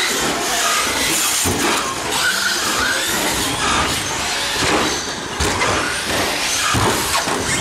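Electric RC short course trucks racing, their brushless motors whining up and down in short bursts over steady tyre and chassis noise.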